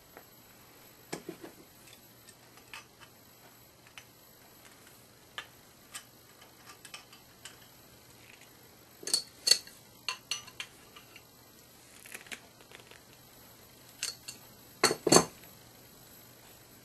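Scattered metal clicks and clinks from an olive-puller tool being squeezed onto and off a compression-fitting olive on pipe. A cluster of sharper clinks comes about nine seconds in, and the loudest pair near the end.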